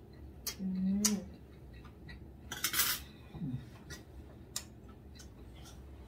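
Metal cutlery clinking against ceramic plates during a meal: a string of separate light clinks, with a longer scrape about halfway through.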